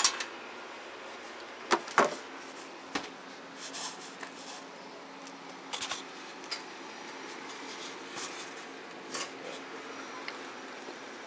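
Scattered clicks and knocks of things being handled at a breakfast counter: the loudest comes right at the start and two more come close together about two seconds in, over a steady low hum.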